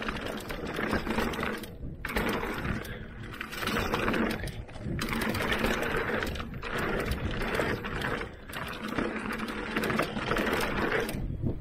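Bafang M600 mid-drive e-bike motor whirring under pedal assist, with tyres rolling over a dirt trail. The sound drops away briefly several times.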